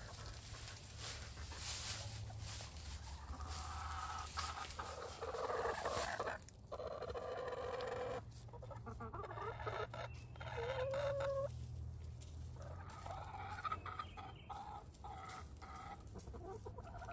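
Chickens clucking, with several drawn-out calls, one ending in a short rising note about two-thirds of the way through.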